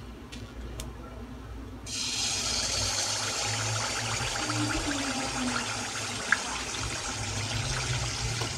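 Tel pitha batter poured into hot oil in a karahi starts sizzling suddenly about two seconds in, then keeps up a steady frying hiss as the fritter puffs and cooks.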